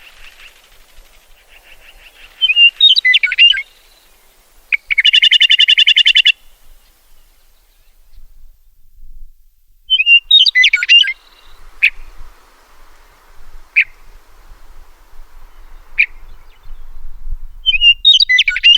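Meadowlark singing: three short, jumbled whistled song phrases several seconds apart. After the first phrase comes a buzzy rapid chatter lasting about a second and a half, and single sharp call notes sound between the second and third phrases.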